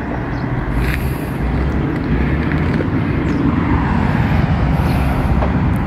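Steady wind rumble on the phone microphone while riding a bicycle, with road noise underneath.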